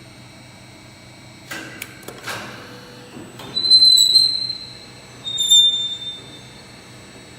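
Three-roll pipe and profile bending machine running with a steady low hum; two knocks, then two high squeals about a second each, the first and louder one a little before the middle, the second soon after.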